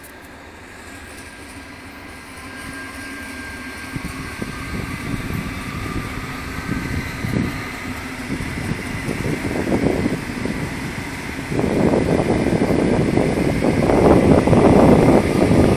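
Allegro high-speed electric train departing and passing close by, its running noise on the rails growing steadily louder as it nears, with a faint steady whine. The noise jumps up sharply about three-quarters of the way through as the carriages go past.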